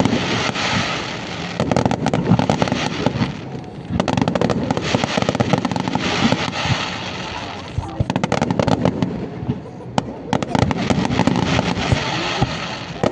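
Fireworks display: many shells going off in dense, rapid crackles and pops, swelling in waves with short lulls.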